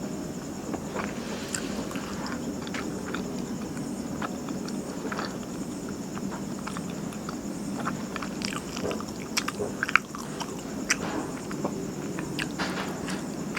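Close-miked chewing and biting of martabak manis, a thick, spongy Indonesian sweet pancake: soft squishy mouth sounds with many small clicks, over a steady low hum.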